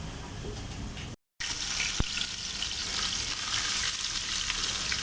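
Curry masala sizzling in hot oil in a cooking pot: a steady loud hiss that starts abruptly about a second in after a brief silent cut.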